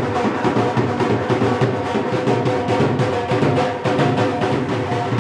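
Dhol drumming in a fast, steady beat, with a few held melodic notes sounding over it.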